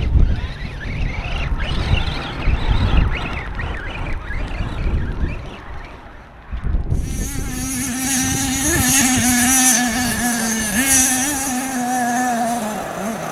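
Wind buffeting the microphone for about the first half. Then, after a sudden change, a radio-control scale truck's motor runs with a steady whine that wavers slightly in pitch, over a hiss.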